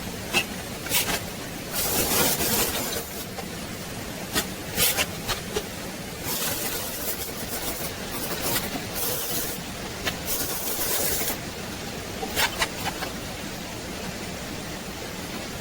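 Sped-up workshop noise from metal fabrication: a string of short hissing bursts and sharp clicks, choppy and irregular.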